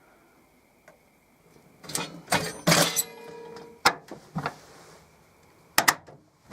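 A series of clicks and knocks, with a brief pitched squeak about three seconds in and two sharp clicks close together near the end.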